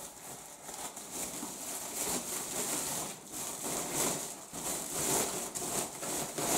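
Thin plastic bag rustling and crinkling as it is handled, in a steady irregular crackle.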